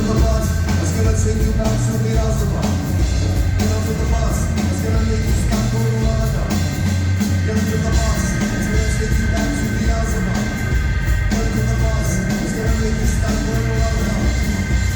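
Rock band playing live, heard from the audience: an instrumental stretch with heavy bass and drums and a steady high held note over it, without vocals.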